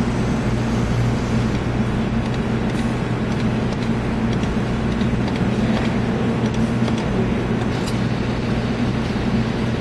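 Steady low mechanical hum and noise at a claw machine during a claw attempt, with a few faint clicks.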